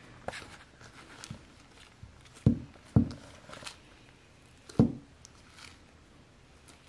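Homemade slime being squeezed and handled, with soft sticky clicks and three loud short thumps, two close together about two and a half and three seconds in and one near five seconds.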